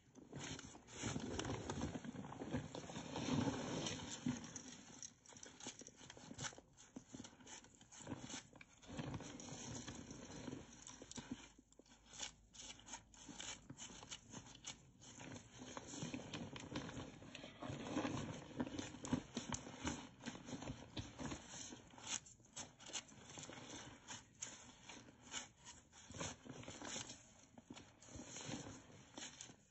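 Bath salts and rice crunching and crackling as they are crushed underfoot on carpet, in dense irregular clicks that come in heavier stretches.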